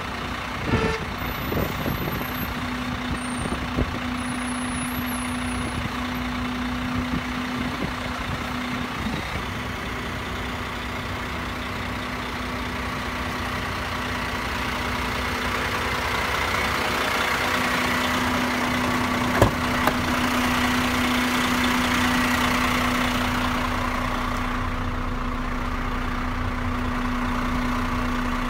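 Heavy truck's diesel engine idling steadily, with a few knocks in the first few seconds and one sharp click a little past the middle.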